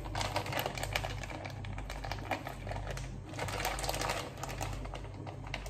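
Plastic frozen-food packaging crinkling and crackling in quick clicks as it is twisted and pulled at by hand to open it, in two spells with a short pause in between. The bag does not tear open.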